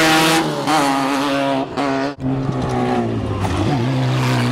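Off-road race buggy engines revving as the cars pass on the dirt course, pitch rising and falling, over the hiss of tires in loose dirt. The sound breaks off abruptly twice about two seconds in, then one engine runs at a steadier pitch.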